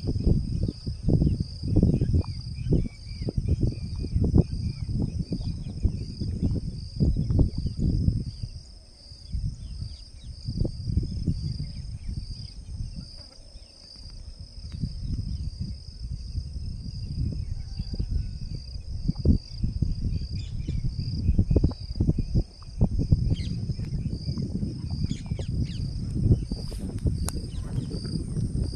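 Cicada calling in a continuous high-pitched, steady buzz, with a loud, uneven low rumble underneath that eases off for several seconds in the middle.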